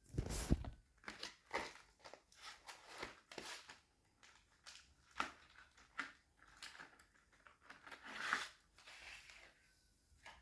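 Footsteps crunching on dry ground, an irregular series at about walking pace, loudest near the start and again about eight seconds in.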